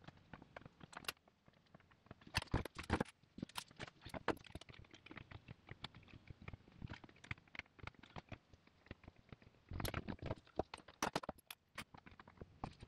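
Scattered small clicks, taps and knocks of a hard plastic car-seat trim piece being handled and shifted on a workbench. There are louder clatters about two and a half seconds in and again around ten to eleven seconds in.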